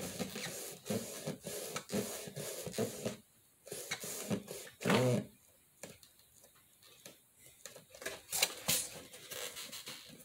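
Hands pressing and rubbing a folded paper strip onto a cardboard tissue box, a dense rustle with scattered small ticks for the first three seconds, then quieter handling. A brief louder sound comes about five seconds in and a sharp click near the end.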